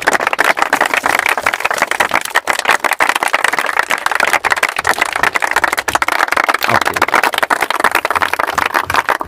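A crowd of people clapping: dense, sustained applause.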